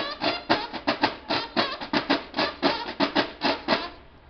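Field drums of a Mexican banda de guerra playing a march cadence: a quick, rhythmic run of drum strokes, about five or six a second, that breaks off briefly near the end.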